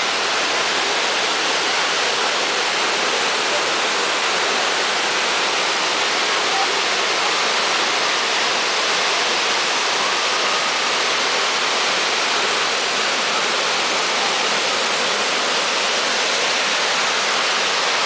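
Chagrin River waterfall, a wide curtain of water pouring over a rock ledge: a steady, unbroken rush of falling water.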